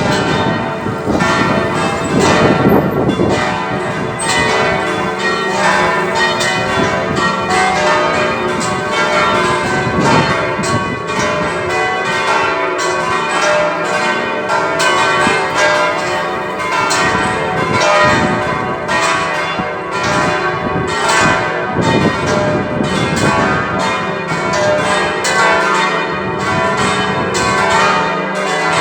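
A ring of six church bells pealing continuously, one strike quickly following another, their tones overlapping and ringing on.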